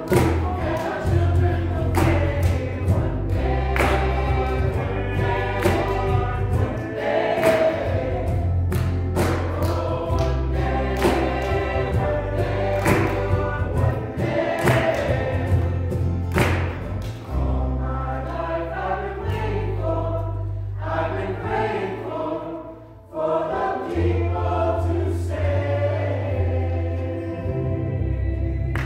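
Mixed church choir singing with acoustic guitars strumming and a strong low bass beneath. The music thins out briefly about three-quarters of the way through, then comes back in.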